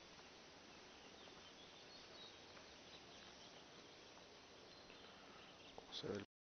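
Near silence: faint open-air ambience with a few faint bird chirps. Near the end comes a brief low knock, then the sound cuts out completely.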